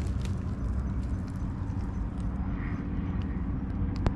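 Dry leaf litter crackling in scattered sharp clicks as the forest floor is handled and stepped on, over a steady low rumble.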